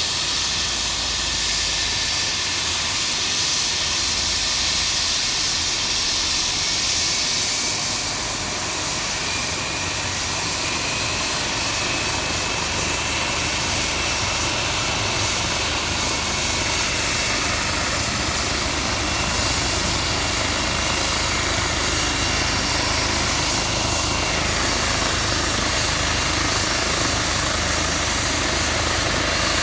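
Air ambulance helicopter running on the ground before take-off: a steady turbine whine over a rush of engine and rotor noise. A high whine rises a little in pitch about halfway through.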